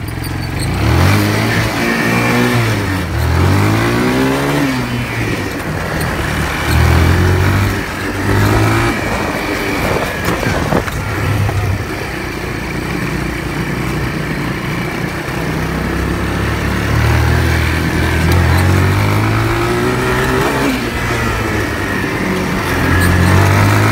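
Four-wheeler (ATV) engine being ridden, revving up and down over and over so that its pitch keeps rising and falling, over a constant rushing noise.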